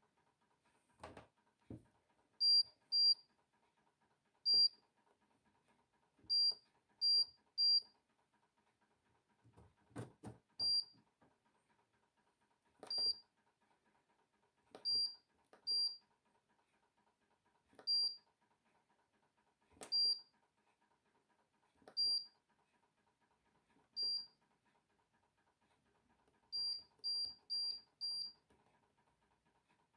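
Hoover Dynamic Next tumble dryer's control panel beeping: short, high single beeps, some in quick runs of two to four, as buttons are pressed or the programme dial is turned, with a few clicks and knocks between.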